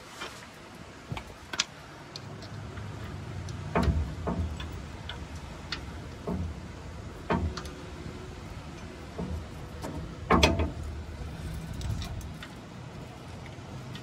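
Irregular metallic clicks and knocks from a sway bar bushing bracket being handled against the truck frame and its bolt being started by hand. The loudest knock comes about ten seconds in. A low steady hum runs underneath.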